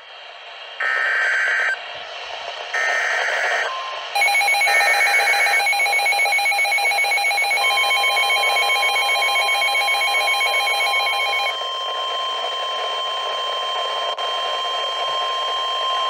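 NOAA Weather Radio Emergency Alert System activation: three short screechy SAME data bursts, then a weather-alert radio's rapid pulsing alarm beeps. From about eight seconds in, the steady 1050 Hz warning tone joins the beeping and carries on alone after the beeps stop near twelve seconds, signalling a severe thunderstorm warning.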